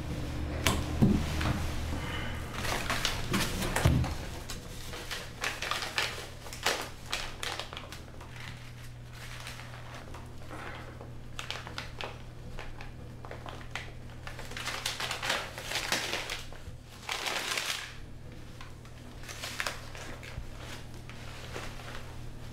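Tissue paper crinkling and rustling in short irregular bursts as a wrapped cloth item is handled and pulled out, over a steady low hum.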